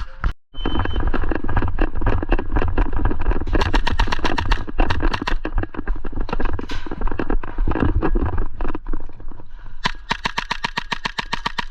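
Airsoft gun firing: repeated sharp shots through the middle, then a rapid full-auto stream at about a dozen shots a second near the end, over heavy rumbling handling and movement noise on the body-worn camera.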